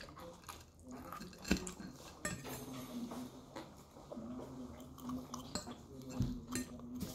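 Metal fork clinking and scraping against a ceramic plate while picking up salad, in irregular short clicks with one sharp clink about one and a half seconds in.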